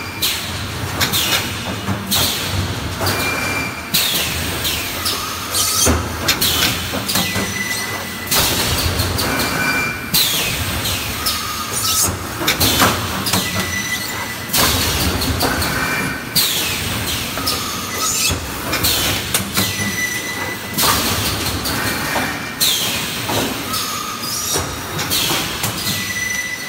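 Vertical EPS 3D panel wire mesh welding machine running through its cycle: loud bursts of mechanical and welding noise with hissing, repeating about every two seconds, with brief high squealing tones in between.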